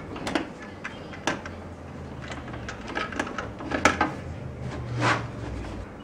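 Hand screwdriver driving screws through the steel side of a PC tower case into a DVD burner: irregular metallic clicks, taps and scrapes as the screws are turned and seated.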